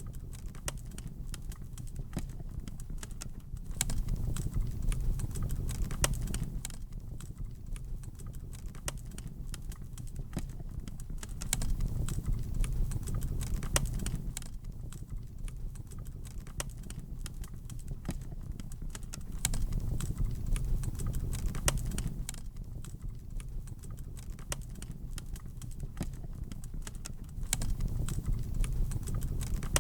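Wood fire in a fireplace crackling, with irregular sharp pops and snaps over a low rumble of the flames that swells and fades about every eight seconds.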